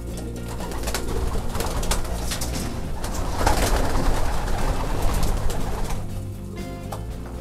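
Pigeons flapping their wings in a loft, a noisy flurry of wingbeats that builds about a second in, is loudest in the middle and dies down near the end.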